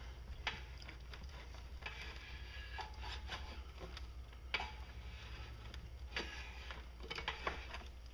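Scattered metal clicks and scrapes of a homemade rod-and-bolt turning tool on the crankshaft of a Briggs & Stratton lawnmower engine, worked round by hand. The crankshaft is all but locked up. A low steady hum runs underneath.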